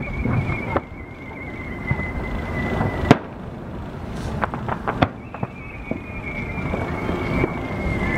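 Aerial fireworks bursting overhead: sharp bangs about a second in and about three seconds in, then a quick run of crackles around four to five seconds in, with a high, thin whistle slowly falling in pitch behind them.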